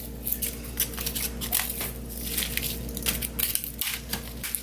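Kitchen scissors snipping through dried pollack skin, trimming off the tail fins, with dry crackling as the brittle skins are handled: a quick, irregular string of crisp snips and crackles.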